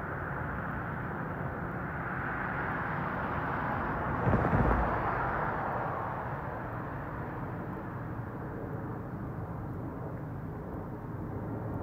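Steady outdoor rumble, with a vehicle passing close by that swells, peaks with a low thump about halfway through, and fades away.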